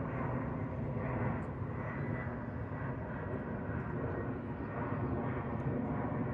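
Jet airliner flying low overhead, its engines a steady, even rushing noise with a faint high whine.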